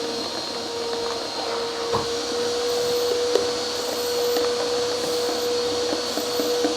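A steady machine hum, like an appliance motor running, with a few faint knocks.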